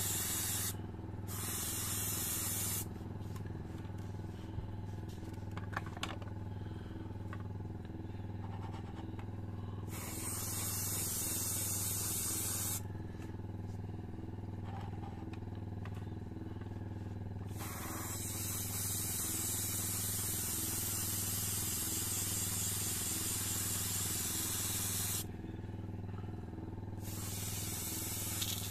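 Airbrush spraying satin varnish in hissing bursts that start and stop sharply, the longest about eight seconds, over the steady hum of a running airbrush compressor.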